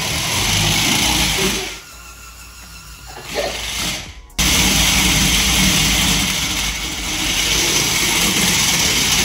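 Electric motors of a Mould King Military ATV, a remote-control building-block vehicle, whirring as it drives, with music over it. The sound drops away briefly, cuts off sharply about four seconds in and comes straight back.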